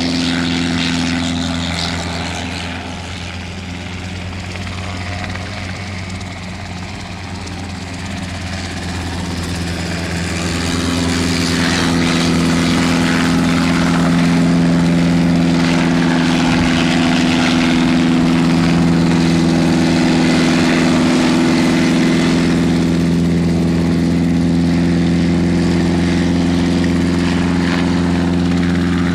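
Cicaré single-seat light helicopter hovering low, its engine and rotor running with a steady drone. The sound drops back for several seconds, then grows louder and holds steady from about a third of the way in.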